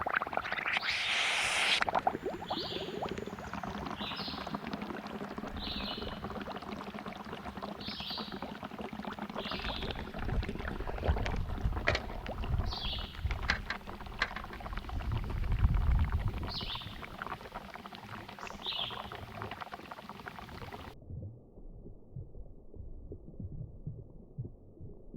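Burning smoke bomb hissing and bubbling in a bucket of soapy bubble solution, with low gurgling swells in the middle, loudest a little past halfway. Short high chirps come every second or two. About three-quarters through, the sound turns dull and muffled.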